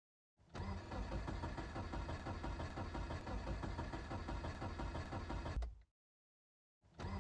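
A car's starter cranking the engine over with an even pulsing churn, without the engine catching, on a cold morning: a crank of about five seconds that stops abruptly, then another crank starting near the end.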